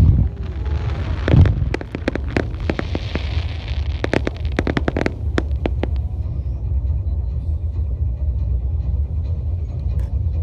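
Aerial fireworks bursting: loud booms and a rapid run of sharp cracks with a hiss over the first six seconds, then a steady low rumble as the bursts stop.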